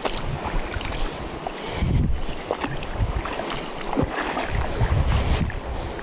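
Wading steps through shallow river water and soft mud: irregular sloshing about once a second, with wind rumble on the microphone.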